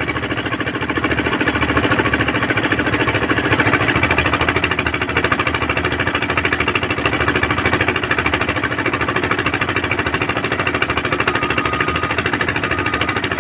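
Heavy equipment running with a loud, fast, steady mechanical knocking, about seven beats a second.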